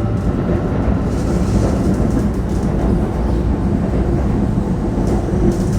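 Steady running rumble of a train, heard from inside a passenger car.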